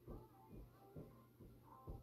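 Soft thuds of bare feet landing on a carpeted floor, a little over two a second, from quick small jumps forward, back and side to side.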